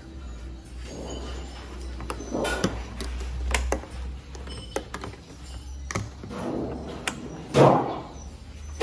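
Front hatch cover of a sea kayak being closed: a run of sharp plastic clicks and knocks as the cover is pressed onto its gasket and the toggle latches and strap buckle are fastened, over a low steady hum, with a louder thud near the end.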